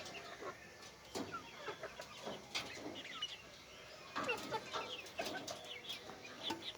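A pen of young chickens clucking and peeping in short, scattered calls, with a few sharp clicks among them.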